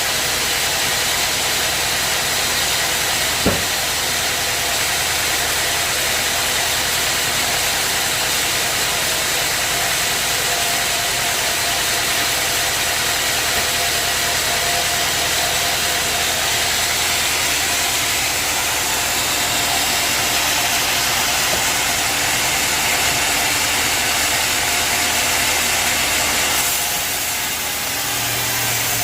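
Sawmill machinery running steadily: an engine hum under a continuous hiss. There is one sharp click about three and a half seconds in. Near the end the hiss drops and the hum shifts.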